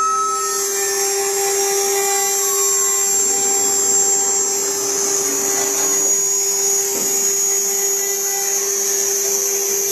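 CNC router spindle running steadily with a high whine while its bit engraves copper.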